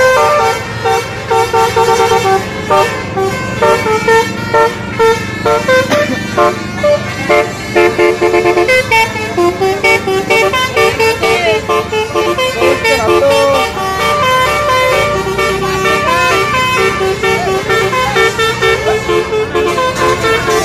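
Bus's basuri telolet horn playing a tune: short pitched notes stepping up and down, phrase after phrase.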